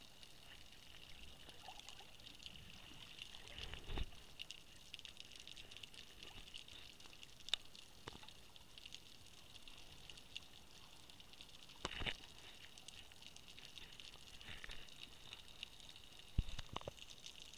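Underwater water sound heard from below the surface: a steady, faint hiss with scattered knocks and clicks, the loudest about four, twelve and sixteen and a half seconds in.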